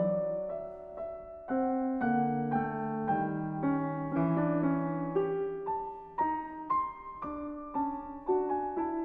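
Background music: a piano playing a gentle melody of notes that strike and fade, about two a second.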